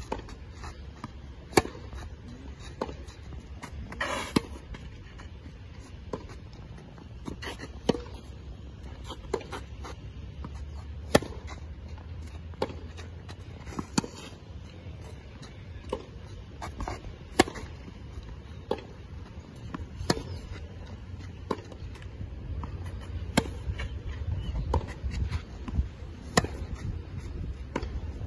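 A tennis rally on a clay court: sharp pops of rackets striking the ball about every second and a half, the near player's hits loud and the far player's fainter, with softer ball bounces between, over a steady low rumble.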